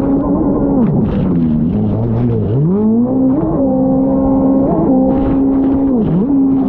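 Stand-up jet ski engine running at high revs, falling off to a low note about a second in and climbing back to full revs near the middle, with a brief dip again near the end, the throttle lifted and reapplied as the ski races through the buoy course. Water spray hisses and splashes off the hull throughout.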